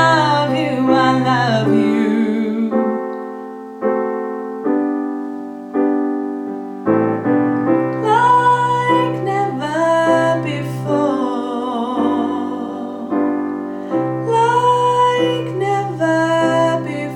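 A woman singing the alto part of a choral arrangement over piano accompaniment. The voice drops out for a few seconds while the piano plays chords alone, then comes back in.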